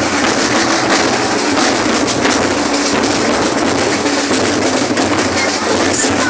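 School marching percussion band drumming, a dense, continuous beat of many drums.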